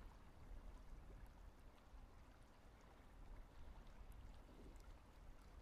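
Near silence: faint ambience of river water flowing past a drift boat, over a low rumble.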